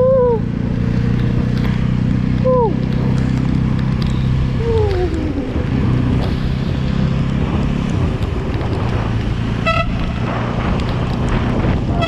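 Jawa motorcycle's single-cylinder engine running steadily under way, under a constant rush of heavy rain and wet road noise. Short vehicle-horn toots sound at the start, about two and a half seconds in, and again near the middle, with one more brief beep near the end.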